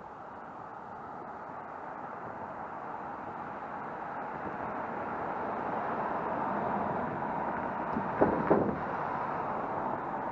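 Cars driving past on a road, a steady rush of tyre and engine noise that swells as a car goes by, with two sharp thumps a little after eight seconds in.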